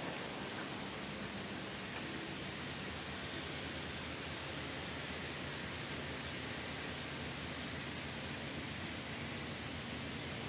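Steady outdoor background noise: an even hiss with a faint low hum underneath, with no distinct events.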